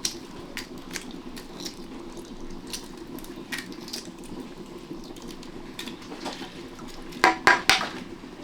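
Scattered light clicks and clinks of plates and utensils during a meal, with a louder run of clatter about seven seconds in.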